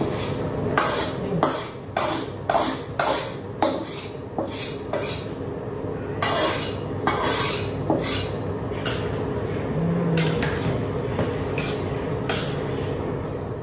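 A spatula scraping and knocking against a metal wok as its contents are scraped out into a soup pot. Quick strokes come two or three a second at first, then a few longer scrapes, then scattered knocks.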